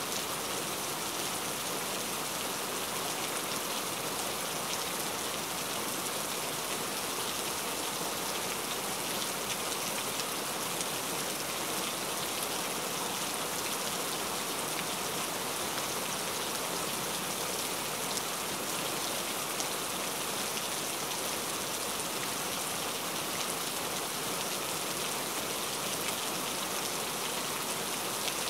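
Steady rain: an even, unbroken hiss with fine patter of individual drops.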